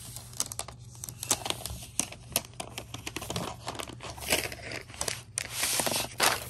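Thin plastic protective wrap being peeled off a new laptop's aluminium underside, crinkling and crackling in quick irregular clicks, with a longer, denser peeling stretch about five seconds in.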